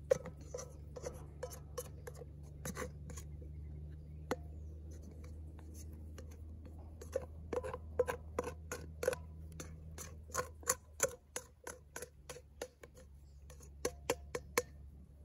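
Flexible plastic dough scraper scraping around the inside of a stainless steel bowl to free sticky dough, a run of short irregular scrapes and clicks that come thickest about halfway through.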